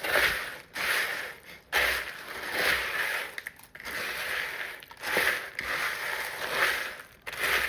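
Spoon stirring crisp puffed rice cereal in a bowl, the coated cereal rustling and crunching in repeated strokes about once a second.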